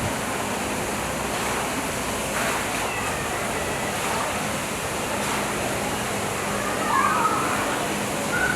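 Steady rushing noise with faint, indistinct voices and a brief high chirp-like call about seven seconds in.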